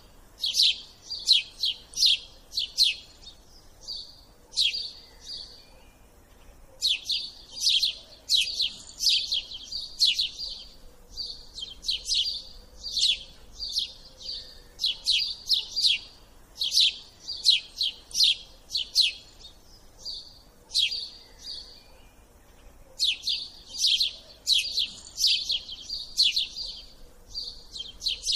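Small bird chirping over and over: runs of quick, sharp, high chirps, about two a second, broken by short pauses.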